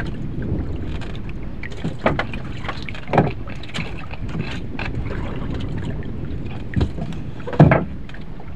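Steady wind and water noise aboard a small wooden outrigger canoe, with a few dull knocks on the boat, the loudest near the end.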